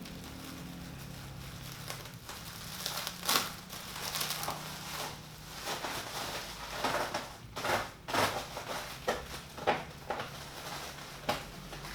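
Cardboard box and packaging of a PC case being handled and opened: irregular crinkling, rustling and scraping noises that start about two seconds in and come in short bursts.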